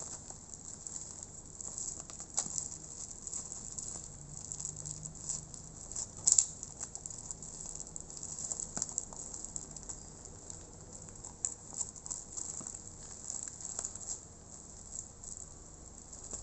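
Parcel being handled and unwrapped: irregular light clicks, taps and rustles of its packaging, the sharpest about six seconds in.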